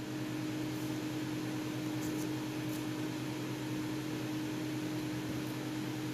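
Steady background hum with a constant low tone and a light hiss, with a few faint ticks of small plastic parts being handled about two seconds in.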